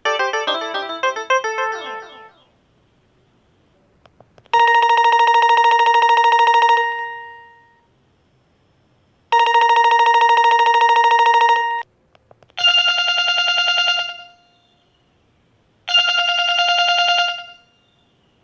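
LG 245 (CX245) mobile phone ringtones: a polyphonic melody ends about two seconds in. Then come two long buzzy electronic rings, each a couple of seconds, and two shorter rings at a higher pitch, with pauses between them.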